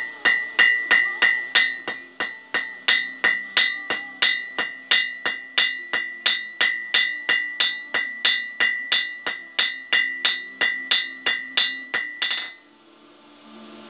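Blacksmith's hand hammer striking red-hot steel on an anvil in a steady rhythm of about three blows a second, each blow ringing, until the hammering stops about twelve and a half seconds in.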